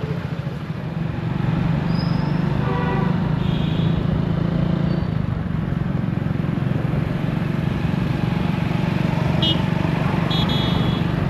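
Motorcycle engine running steadily while the bike rides through town traffic, with a few short horn toots from passing vehicles: once a few seconds in and twice near the end.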